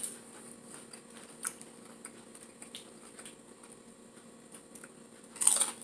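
Close-miked eating of tortilla-chip nachos: scattered small clicks and crackles of chips being picked up and chewed, with one louder crunch near the end.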